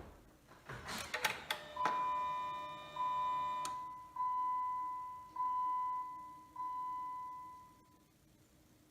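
A few clicks, then the Jeep's electronic warning chime dinging five times about a second apart, each ding fading away. No engine cranking or running is heard: the start attempt on the newly rewired TIPM gets only the chime.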